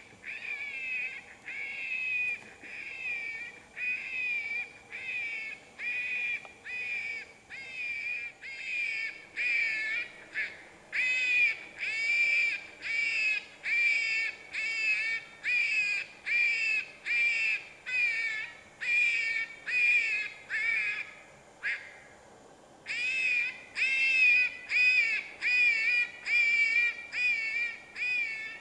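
Predator call playing a prey-in-distress sound to draw in coyotes: a steady run of high, wavering, wailing cries, about one and a half a second, with a short break about three-quarters of the way through before it starts again.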